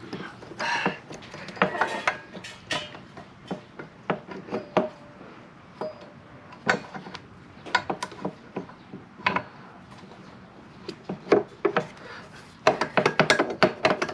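Metal parts and hand tools clicking and clinking as a motorcycle front brake caliper is slid back onto the disc and fitted: scattered sharp knocks, a few with a short metallic ring, and a quick run of clicks near the end.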